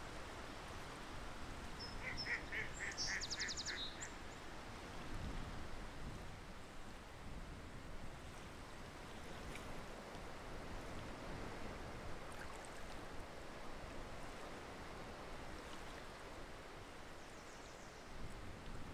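Waterfowl calling: a quick run of about seven short, evenly spaced calls about two seconds in, with a high rapid trill over the last of them. After that there is only steady, soft background noise.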